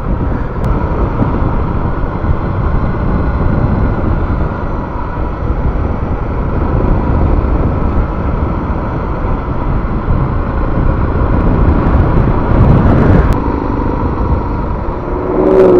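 Suzuki DR650 motorcycle under way, its single-cylinder four-stroke engine running steadily with a dense rush of riding noise, swelling briefly about twelve seconds in.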